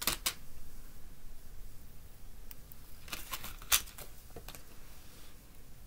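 A hearing aid battery card and small parts being handled on a wooden tabletop: a few scattered light clicks and taps, the sharpest about two-thirds of the way through.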